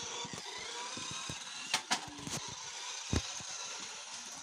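Small electric motor of a toy RC car whirring steadily as it drives over carpet, with a few sharp knocks.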